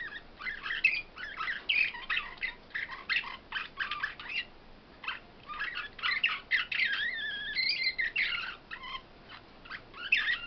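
Caged finches singing: rapid twittering chirps and trills, a brief pause about halfway through, then more song with a sustained trilled phrase.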